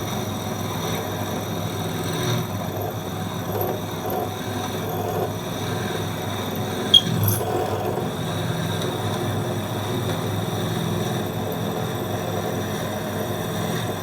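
ZJ4113 bench drill press running steadily with its motor humming as the bit drills through a metal bicycle pedal wrench, with one sharp click about seven seconds in.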